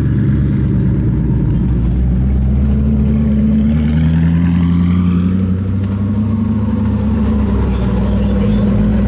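Koenigsegg hypercars' twin-turbo V8 engines running at low speed as the cars roll past one after another, with light throttle bringing gentle rises in pitch about four seconds in and again near the end.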